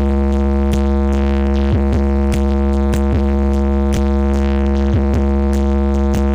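Electronic dance music played loud through a large festival sound system: one deep synth bass note held steady, heavy in the bass, with light drum hits over it.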